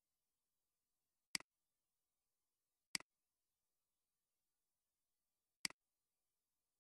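Computer mouse button clicked three times, each click a quick press-and-release double tick, against near silence.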